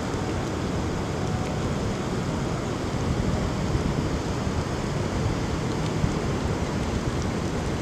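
Steady outdoor ambient noise: an even low rumble with no distinct events.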